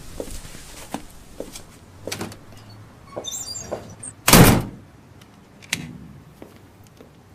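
A string of light knocks and clatters, with a brief high tinkle a little past three seconds and one loud thud, like a door banging shut, about four and a half seconds in.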